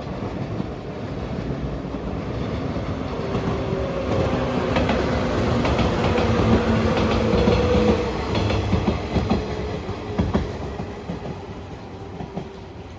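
A train passing close by. Its running noise swells to a peak about six to eight seconds in and then fades away, with the wheels clacking over rail joints as it goes.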